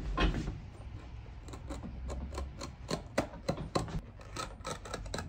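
Snap-off utility knife cutting through the Blake stitching of a leather shoe sole: a string of small, irregular clicks as the threads are cut.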